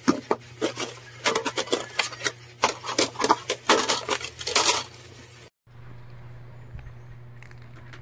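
Plastic ceiling-fan blades and motor housing being handled, a quick run of clicks and clatters for about five seconds. After a short break it gives way to a low steady hum.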